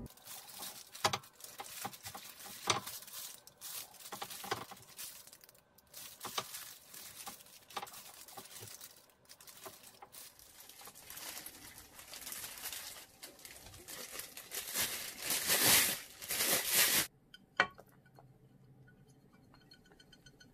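Thin plastic disposable gloves crinkling and rustling as hands tear cooked chicken apart, with many small clicks. It is loudest shortly before it stops suddenly near the end.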